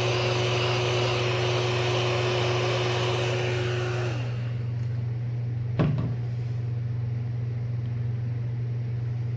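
Heat gun blowing hot air with a steady whine, switched off about four seconds in, its fan winding down with a falling pitch. A single sharp click comes about two seconds later, over a steady low hum.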